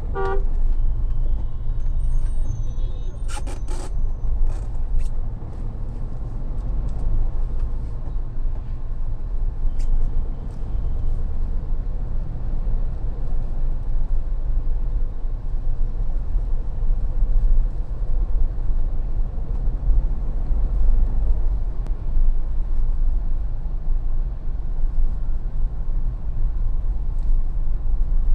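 Mahindra Thar on the move: a steady low engine and road rumble. A few short high-pitched tones come about two to four seconds in, and one more near ten seconds.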